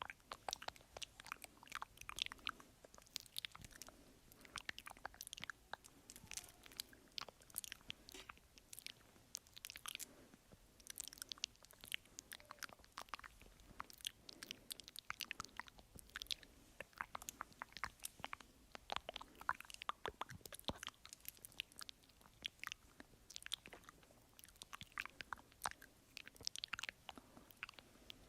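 ASMR mouth sounds close to the microphone: a quick, irregular run of soft wet clicks and smacks from the lips and tongue.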